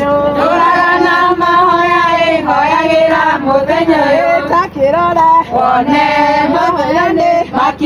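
A group of women singing a song together, with long held notes that slide and step in pitch.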